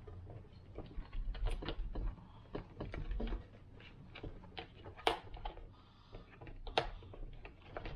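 Irregular small clicks and taps from handling a jump starter pack as it is reassembled, with two sharper knocks about five and seven seconds in.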